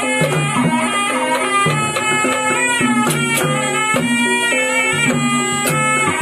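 Ebeg accompaniment music: a slompret, the Javanese double-reed shawm, plays a reedy melody over gamelan and drum strokes in a steady beat.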